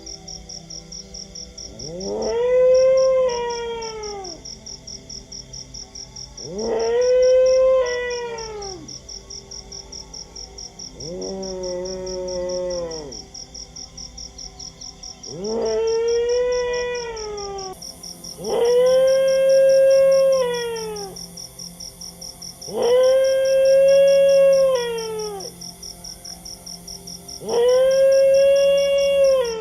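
A dog howling: seven long howls a few seconds apart, each rising, holding and falling away, the third and fourth softer. Under them runs a steady, rapid, high-pitched pulsing.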